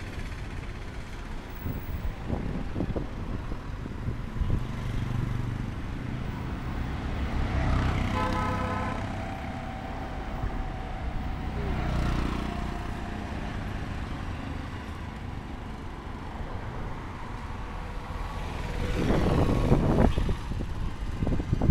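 Street traffic: vehicle engines running and passing in a steady low rumble, with a brief pitched engine or horn tone about eight seconds in, and a vehicle passing close and loud near the end.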